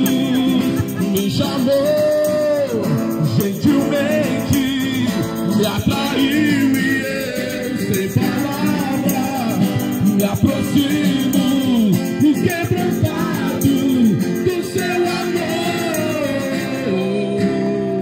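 Mixed group of men and women singing a worship song together, accompanied by acoustic guitar.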